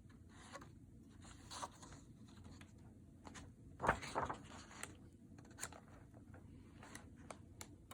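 Paper rustling as a book page is turned, loudest about four seconds in, with scattered light clicks of handling.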